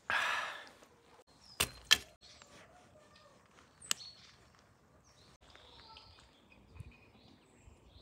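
A loud breathy exhale, then sharp clicks, two close together just under two seconds in and one about four seconds in. Birds chirp faintly over a quiet outdoor background.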